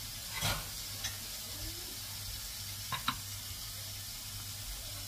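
Food sizzling as it fries in a pan on a gas stove, a steady hiss over a low hum. A few short knocks cut through, the sharpest about half a second in and about three seconds in.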